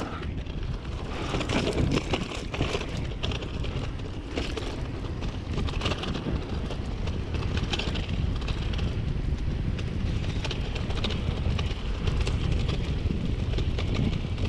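Vitus mountain bike riding a dirt trail: wind rumbling on the camera microphone over the hum of tyres on dirt, with frequent small clicks and rattles from the bike over bumps.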